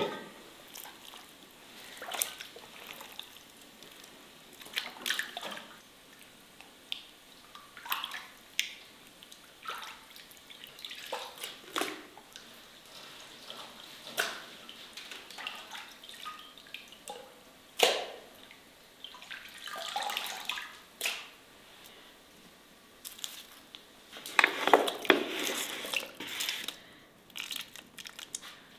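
Raw chicken breasts being washed by hand in a basin of water: scattered splashes and drips, with a longer stretch of sloshing about three-quarters of the way through.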